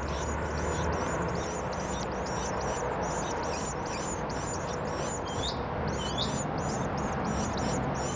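Nearly fledged nestlings calling from the nest: a continuous run of short, high, down-slurred chirps, about three a second, over steady low background noise.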